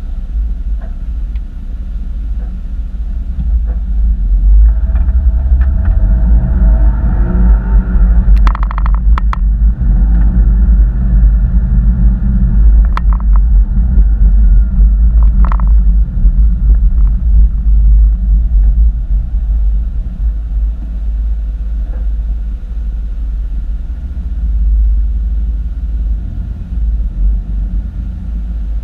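A 2013 Porsche Boxster's flat-six engine pulls hard, louder with rising pitch for about the first two-thirds, then eases off, over a heavy low rumble. A few short sharp clicks come in the middle.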